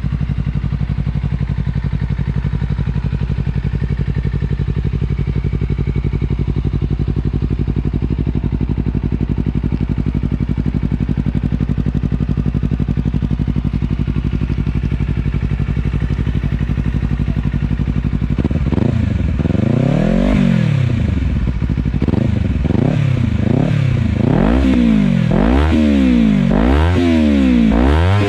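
Honda CBR250RR motorcycle engine through an Akrapovic Racing Line slip-on exhaust, idling steadily, then revved with repeated throttle blips, about one every second and a half, over the last ten seconds.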